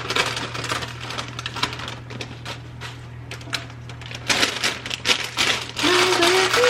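Rapid, irregular crackling and clicks as spinach is handled at the skillet. A woman starts humming a tune near the end.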